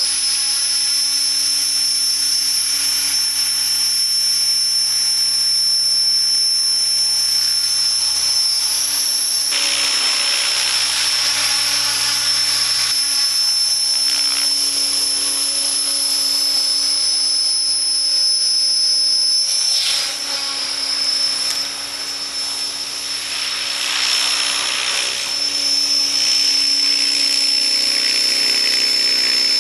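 Align T-Rex 600ESP electric radio-controlled helicopter running, with a steady high-pitched whine over the rush of the rotor blades. The blade noise swells twice and dips briefly past the middle, as the helicopter lifts off the pad and flies.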